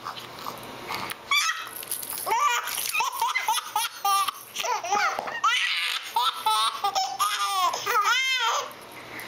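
Two infants laughing at each other: bursts of baby belly laughs and giggles with rising-and-falling pitch, coming thick and fast, then easing off near the end.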